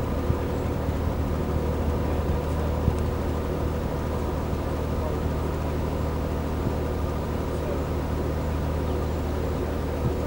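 Narrowboat engine running steadily at cruising speed, a constant low hum.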